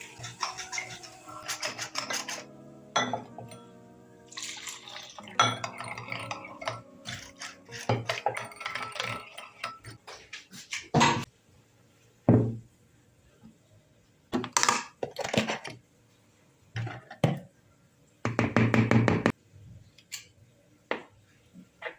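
Kitchen clatter: utensils knocking and clinking against bowls and dishes in scattered strikes, with a few short rushing bursts. Background music plays through roughly the first half.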